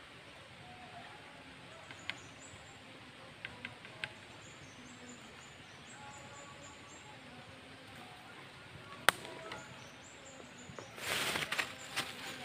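Faint high-pitched insect chirping with a few light clicks. About eleven seconds in comes a louder burst of rustling and splashing as a climbing perch is pulled out of the shallow water on the line.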